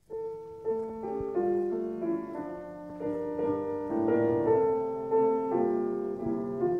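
Instrumental introduction to a children's song: a melody of held notes over chords on a keyboard instrument, starting abruptly.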